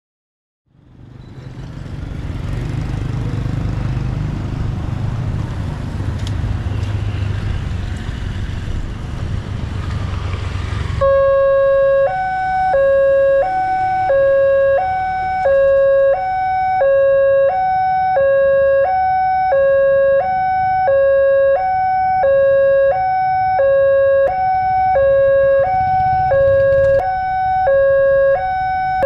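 Railway level-crossing warning alarm: an electronic two-tone signal that starts abruptly about eleven seconds in and alternates between a lower and a higher tone about once a second, signalling an approaching train. Before it, a steady noisy rumble.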